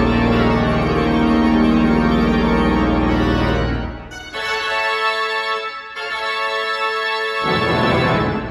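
Pipe organ playing sustained full chords over a deep pedal bass; about four seconds in the bass drops out and higher chords follow, with a short break, until the music stops about a second before the end. Applause then begins.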